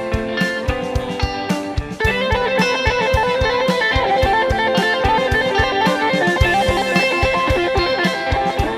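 Background music: a guitar-led instrumental track with a steady beat, growing fuller about two seconds in.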